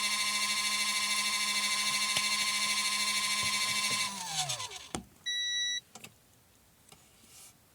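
Small 12 V portable washing machine's electric motor running with a steady hum, then winding down with falling pitch about four seconds in as the cycle ends. A knock follows, then a single short electronic beep signalling that the machine has stopped.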